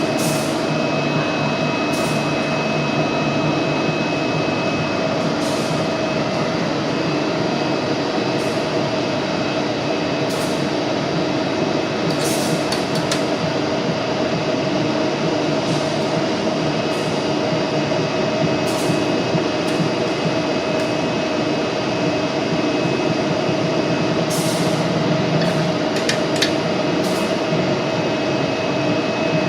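Machinery running steadily with a dense mechanical hum and a steady high whine. Short clicks and knocks come every few seconds.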